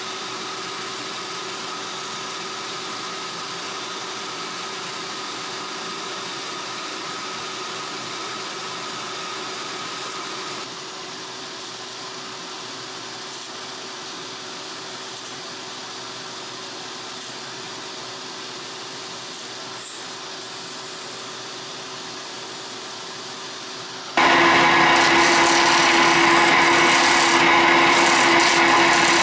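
Wood lathe running steadily with a constant motor hum. Near the end it gets much louder and rougher as a tool cuts the spinning resin pen blank.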